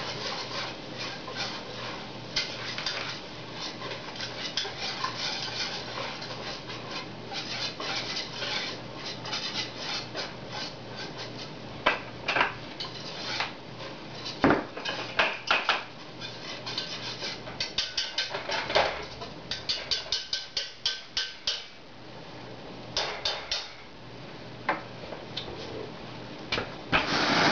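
A metal utensil stirring and scraping in a metal saucepan while a roux cooks, with clicks and scrapes against the pan and a run of quick taps past the middle.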